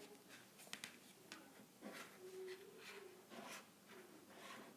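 Near silence: room tone with a few faint clicks and taps.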